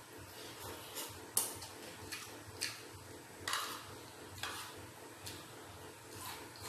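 Eating sounds: a spoon and fork clicking and scraping on a plastic plate, with mouthfuls of rice and noodles being chewed. These come as irregular short clicks and brief rustling scrapes, with the sharpest click a little over a second in.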